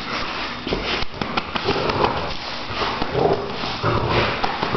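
Dog tugging and biting at a plastic beach ball, its claws clicking and scrabbling on the concrete floor, with the dog's growls.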